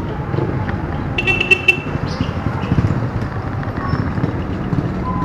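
Street traffic: motor vehicle engines running, with a short vehicle horn toot about a second in.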